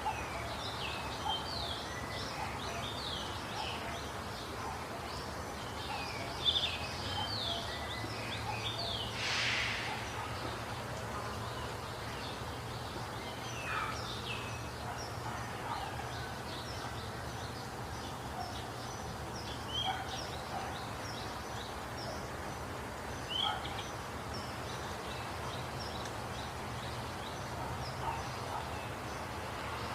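Several small birds chirping with many short, high, quick notes, busiest in the first ten seconds and thinning out later, over a steady low background rumble. A brief rushing noise breaks in at about nine seconds.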